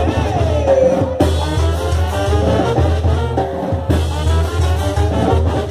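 Live Mexican banda playing an instrumental brass passage: trombones and trumpets over a steady tuba and bass-drum beat, without singing.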